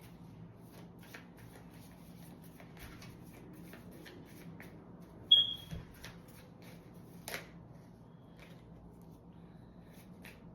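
Tarot cards being shuffled by hand: a soft, continuous run of quick card flicks and slides. About halfway through, a short high ping rings out as the loudest sound, and a sharp tap follows about two seconds later.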